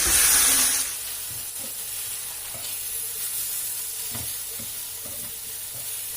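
Parotta pieces with kurma sizzling on a hot tawa while being stirred. The sizzle is loud at first and drops off sharply about a second in, after which a quieter sizzle continues with a few light knocks and scrapes of the spatula.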